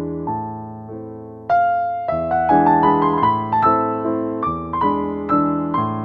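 Background piano music with gentle struck notes that grow louder and fuller about a second and a half in.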